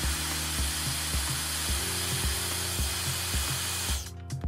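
Hair dryer blowing steadily to warm and loosen the adhesive on a phone screen; it cuts off about four seconds in. Background music with a steady beat runs underneath.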